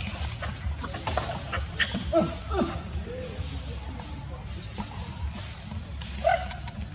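Short squeaky calls from a newborn macaque, a few about two seconds in and one near the end, over a steady high insect buzz with short chirps repeating every half second or so and a low rumble.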